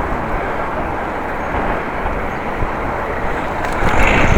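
Strong wind buffeting the microphone, a steady rushing rumble that grows louder near the end.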